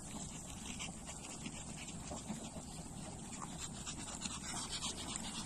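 Pomeranian dogs panting, a run of short repeated breaths that grows busier near the end.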